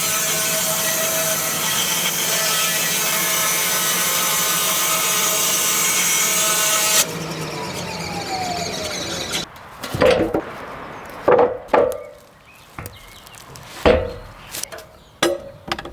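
Sawmill blade cutting through oak: a loud, steady saw whine with sawing noise that cuts off suddenly about seven seconds in. A falling tone follows, then several separate wooden knocks and clunks.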